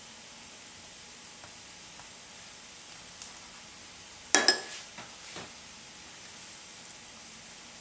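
A metal spoon clinks sharply twice against the nonstick tawa about four and a half seconds in, with a few lighter taps around it, as butter is spread on burger buns toasting in the pan. Under it runs a steady faint hiss from the cooking.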